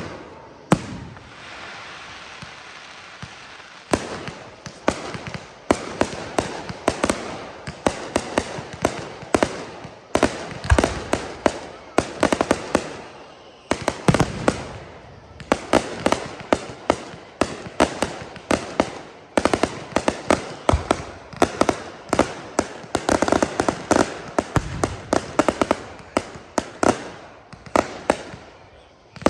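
Fireworks display: rapid, continuous crackling and popping with repeated bangs, several a second, over a hissing wash of burning shells.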